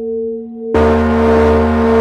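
Large brass singing bowl ringing with a steady hum that wavers slowly in loudness. About three quarters of a second in, the bowl is struck again with its wooden striker: the sound jumps suddenly louder and brighter, with a harsh hiss-like edge, and keeps ringing.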